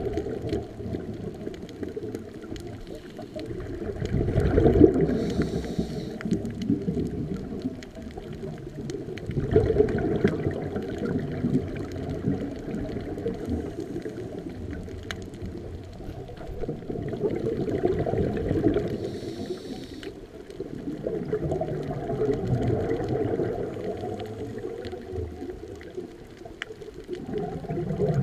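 Scuba diver breathing underwater through a regulator: a slow rhythm of breaths, each exhalation a swell of rumbling, gurgling bubbles every five to eight seconds.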